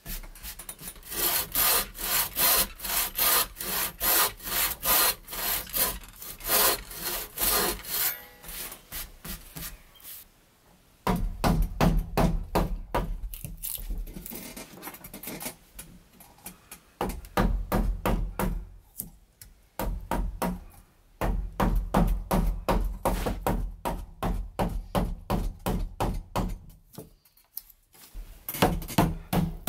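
Hand saw cutting kerfs across a wooden beam in quick back-and-forth strokes, about two a second. After a short pause about ten seconds in, further bouts of rhythmic cutting and scraping follow as a chisel clears the waste from the notch.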